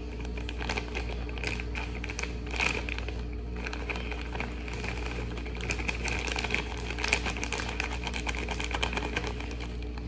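Plastic bag of light brown sugar crinkling in rapid, irregular clicks as it is squeezed and shaken to empty the sugar into a bowl.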